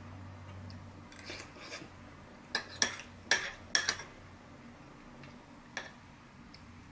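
Metal spoon clinking against a ceramic bowl: a few soft taps and scrapes, then a quick run of sharp clinks about two and a half to four seconds in, and one more clink near the end.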